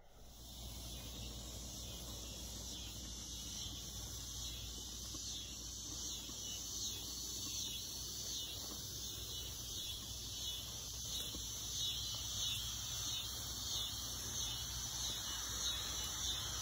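Weeden No. 20 toy steam engine running under steam: a steady high hiss with a fast, regular chuffing pattern over a low rumble, growing slightly louder.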